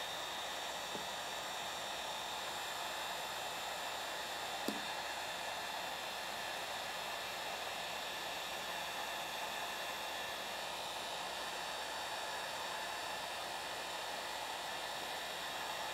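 Electric heat gun running steadily, a constant blowing hiss, aimed at old decals to soften their adhesive so they can be peeled off. One faint click about five seconds in.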